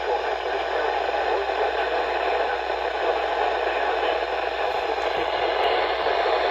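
Steady static hiss from a radio receiver, an even noise with no voice coming through.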